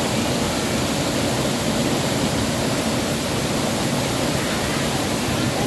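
Waterfall water rushing and splashing in a steady, unbroken roar of noise.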